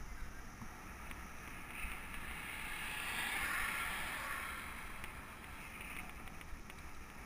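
A car passing on asphalt, its tyre and engine noise swelling to a peak about halfway through and then fading, over steady wind rushing on the microphone of a camera on a moving bicycle.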